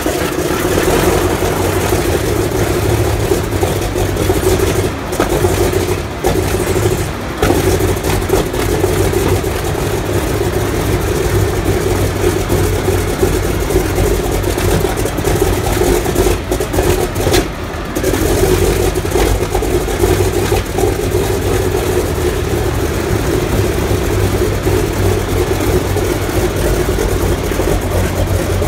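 Antonov An-2's nine-cylinder Shvetsov ASh-62 radial engine catching on a cold start and running, with brief dips in level about five, six, seven and seventeen seconds in before it runs on steadily.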